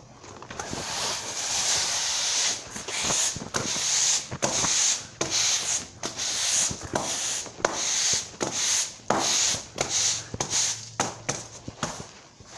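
Push broom sweeping a concrete shop floor: a run of quick bristle scrapes, about one to two strokes a second, starting about a second in and easing off near the end.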